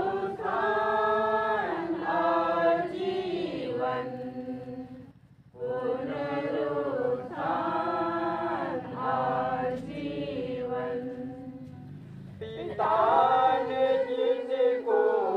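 A group of mourners singing a funeral hymn together in long, held phrases. There is a short break about five seconds in, and the singing grows louder near the end.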